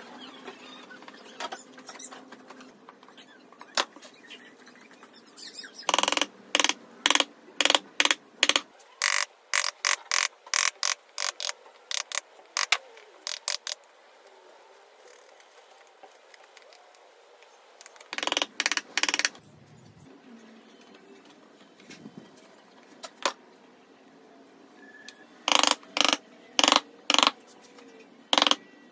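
Wood chisel cutting bowtie-shaped recesses for butterfly inlays into a softwood tabletop: runs of short, sharp cuts about four a second, with quiet pauses between the runs.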